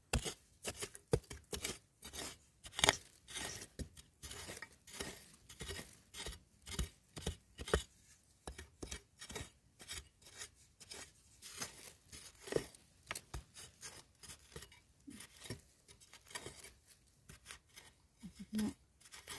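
A metal digging spade chopping and scraping into dry, stony soil in repeated uneven strikes, mostly one or two a second.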